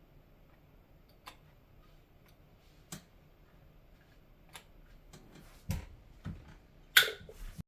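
Macintosh Plus running through a boot test: a faint low hum with a few isolated clicks, then louder knocks and a sharp clatter about seven seconds in before the sound cuts off suddenly.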